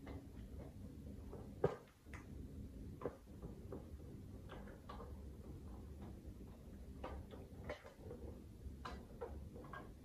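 Scattered light clicks and taps of small plastic toy pieces and little plastic doors being handled on a miniature toy kitchen set, the sharpest click about one and a half seconds in.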